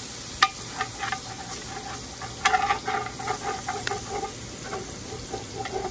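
Long metal spoon scraping across the bottom of a hot cast-iron pot, with water sizzling in it: deglazing, loosening the browned pork bits stuck to the pot to make a dark gravy. A run of scraping strokes, with sharper knocks about half a second in and again around two and a half seconds in.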